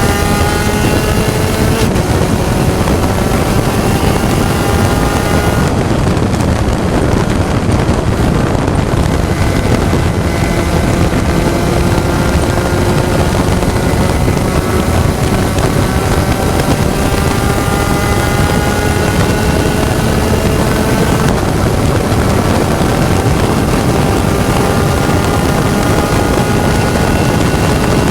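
Onboard sound of a Spec Racer Ford race car at speed: the engine note climbs slowly in long pulls and drops back at gear changes about two seconds in and again around twenty seconds in, under heavy wind and road noise.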